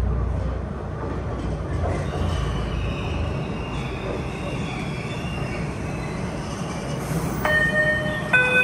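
Boston MBTA Orange Line subway train pulling into an underground station: a steady low rumble with a high whine of wheels on rail. Near the end a loud pitched tone sounds, stepping once in pitch.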